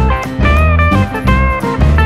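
Background music: a guitar-led tune over a pulsing bass line.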